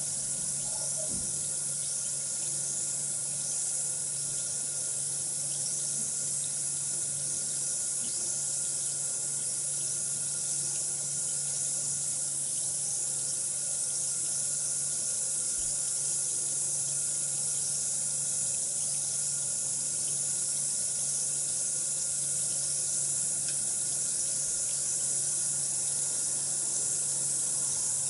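Bath bomb fizzing steadily in water as it dissolves: a constant high hiss.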